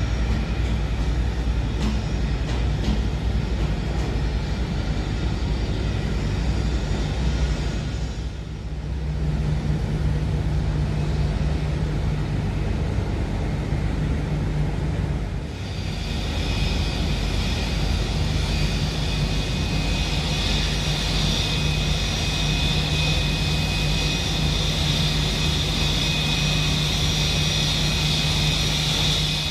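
Airbus A320-family airliner's jet engines running at taxi power: a steady low hum with a high engine whine that comes in strongly about halfway through and holds.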